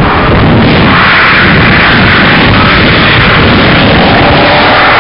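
A constant, distorted roar overloading the camcorder microphone, typical of wind buffeting the mic. Near the end, the engine of a car approaching on the track begins to come through as a steady tone.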